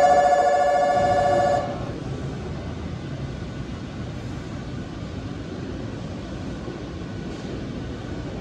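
An electric bell at the railway station rings loudly and rapidly at one steady pitch, then stops after about a second and a half. After it comes a steady background hum of the station and the standing train.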